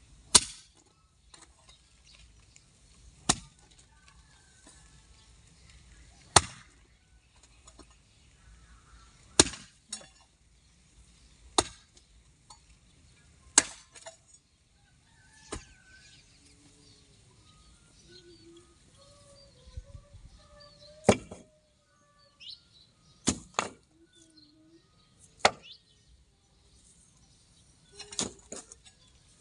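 A steel hoe chopping into dry, grassy soil, breaking ground for a planting bed: single sharp strikes every two to three seconds, with a quick double strike a little past the middle and a tight cluster of strikes near the end.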